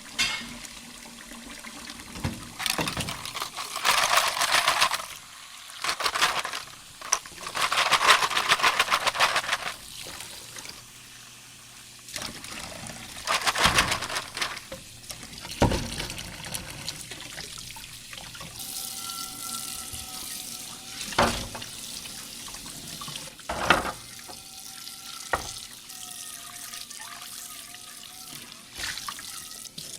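Dishes being washed at a sink: tap water runs and splashes in several bursts of a second or two each. Dishes knock and clink now and then, mostly in the second half.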